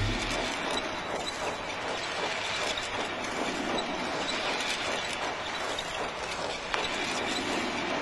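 Steady, dense mechanical clatter and hiss of sound-effect machinery, with one sharper click about three-quarters of the way through.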